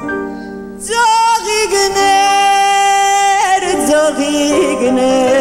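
Song: a woman sings a phrase over instrumental accompaniment, holding one long high note from about two seconds in to about three and a half seconds, then moving on, with the word 'tsaghikner' (flowers) near the end.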